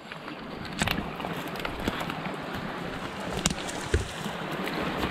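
Someone walking through dense brush: branches and twigs brushing against clothing, and footsteps in leaf litter, with a few sharp twig snaps.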